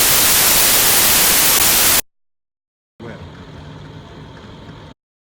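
Loud steady hiss that cuts off suddenly about two seconds in; after a second of silence, a fainter steady noise with a low hum runs for about two seconds and stops abruptly.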